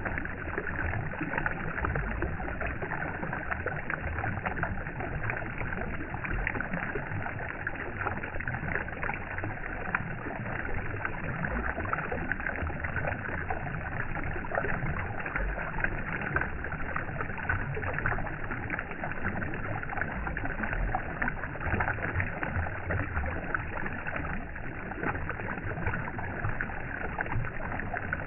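Steady, unbroken flowing-water ambience that holds the same level throughout.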